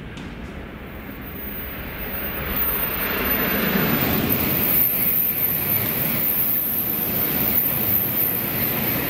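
700 series Shinkansen passing through a station at speed without stopping: a rush of air and wheel noise that builds about two seconds in as the nose reaches the platform and stays loud while the cars stream past, with a thin high whine above it.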